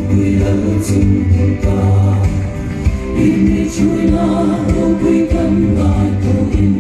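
Music: a group of voices singing a gospel-style hymn over a steady low accompaniment.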